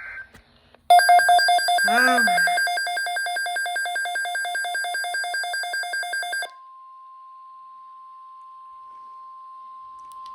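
A loud electronic alarm beeping rapidly, about four to five pulses a second for some five seconds, then cutting to a single steady tone just above 1 kHz: the NOAA Weather Radio 1050 Hz warning alarm tone that comes before a severe weather broadcast.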